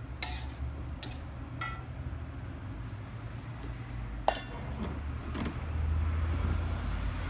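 Metal spoon clinking and scraping against stainless steel mixing bowls while diced beets are stirred with vinaigrette, with one sharp ringing clink a little past four seconds in. A steady low rumble sits underneath and grows louder near the end.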